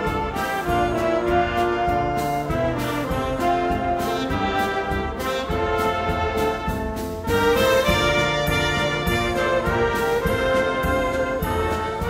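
Brass band music with a steady drum beat, trumpets and trombones playing a lively tune.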